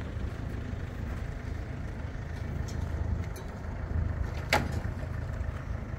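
A motor vehicle's engine running steadily at low revs, a continuous low rumble. A single sharp click sounds about four and a half seconds in.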